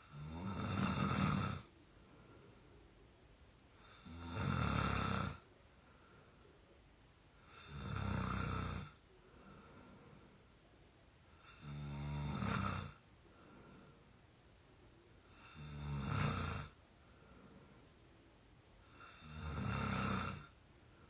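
A 22-year-old person snoring in sleep: six snores, one about every four seconds, each lasting a little over a second, with quiet breathing in between.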